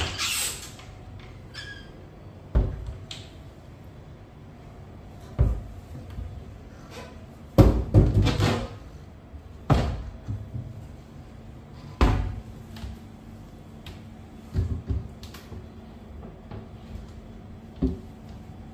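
Wooden kitchen cabinet doors being opened and shut by hand: a series of about eight separate knocks and thuds, with a busier clatter of several bangs together near the middle.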